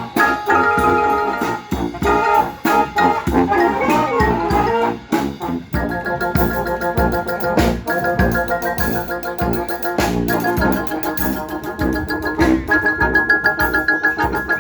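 Street brass band playing an upbeat tune: horns hold sustained chords over a steady drum beat, with the sound filling out about six seconds in.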